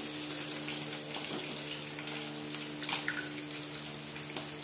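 Pieces of fish shallow-frying in hot oil, a steady sizzle, over a steady low hum, with a short click about three seconds in.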